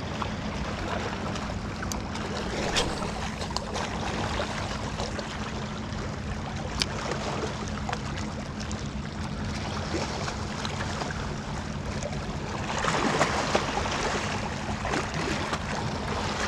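Small waves lapping against a rocky lakeshore, with wind on the microphone: a steady rushing with a low rumble and a few faint clicks, swelling for about a second near the end.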